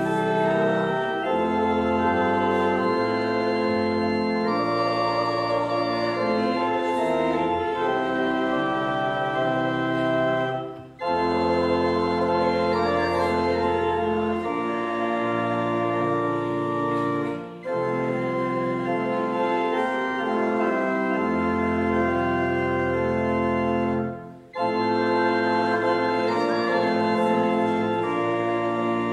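Church organ playing a hymn in held chords, with short breaks between phrases about 11, 17 and 24 seconds in.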